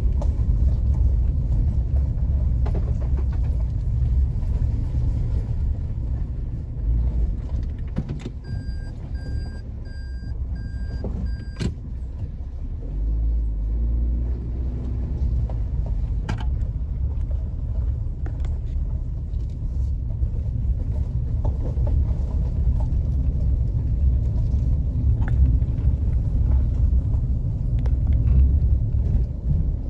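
Low, steady rumble of a car driving, heard from inside the cabin: engine and tyre noise.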